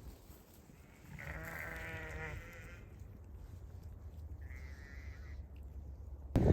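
Sheep bleating: a long, quavering bleat about a second in, then a shorter, higher bleat near the end. A sudden loud noise starts right at the very end.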